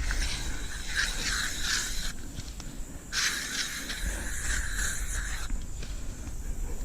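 Aerosol bug spray can spraying in two long hisses, about two and two and a half seconds, with a short pause between.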